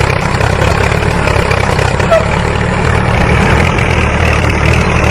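Steady, loud engine-like running, cutting in suddenly as a fast low rumble with a constant rough hiss above it.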